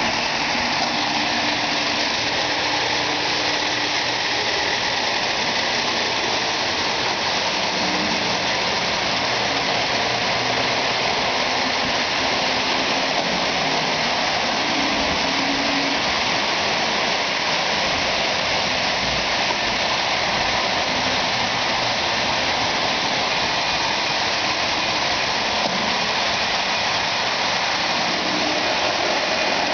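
Lionel O-gauge die-cast 4-4-2 locomotive and its passenger cars running on three-rail track: a steady rolling rumble and whir of wheels and motor.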